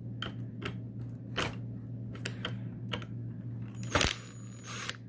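Scattered light clicks and taps as a plastic electric fan is taken apart by hand with a screwdriver, over a steady low hum. About four seconds in, a short hiss lasting about a second.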